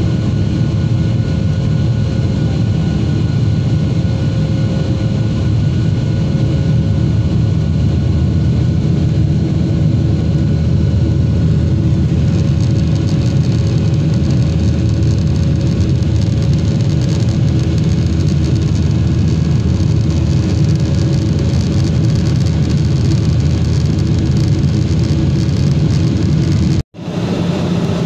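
Airliner engine and airflow noise heard inside the cabin: a steady low rumble with a faint constant hum. It turns a little hissier about halfway through, and near the end it drops out abruptly for an instant.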